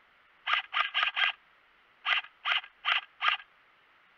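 Airsoft M4-style rifle fired in rapid single shots, about four a second, in two strings of four.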